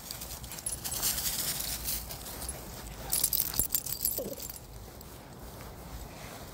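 Dry fallen leaves rustling and crackling under a small dog's paws and the walker's feet, louder for a second or two near the start and again about three seconds in, with a light metallic jingle from the leash clip.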